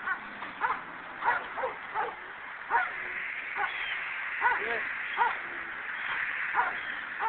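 A dog giving short, high yelping barks over and over, roughly one or two a second.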